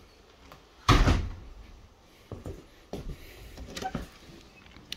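Wooden French door with glass panes being handled and opened: one loud knock about a second in, then several lighter knocks and rattles.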